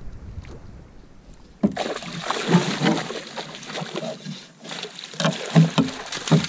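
Northern pike thrashing in a landing net at the water's surface, a loud splashing that starts suddenly about a second and a half in and keeps going as the net is lifted.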